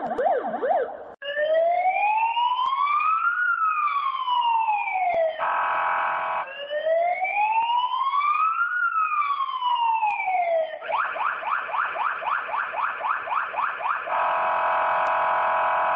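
Electronic police siren switching between its patterns. It opens with a fast yelp, then gives two slow rising-and-falling wails with a brief steady tone between them. After that comes a fast rising yelp again, and it ends on a steady tone.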